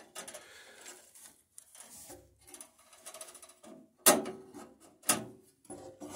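Steel bandsaw blade being handled and worked onto the lower wheel of a Dunlap bandsaw: small metallic clicks and rustling, with two sharp knocks that ring briefly, about four and five seconds in.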